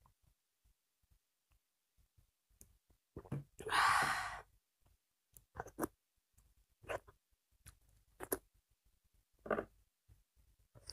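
A person's loud breathy exhale about four seconds in, just after swallowing a drink, followed by four short mouth clicks and smacks while chewing food.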